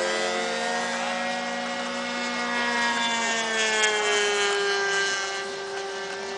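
Small glow-fuelled model-airplane engines (O.S. .91) running at high speed in flight, a high buzzing drone. About halfway through, the pitch drops and settles lower as a plane passes by or throttles back.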